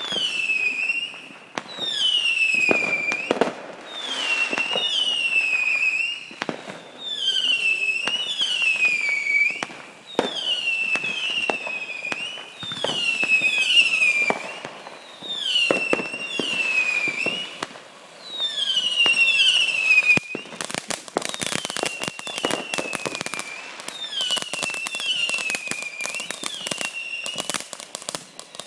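Multi-shot consumer firework cake firing whistling shots one after another, each a shrill whistle that falls in pitch, often two close together. About 20 seconds in the whistles thin out and a dense run of sharp crackling pops takes over.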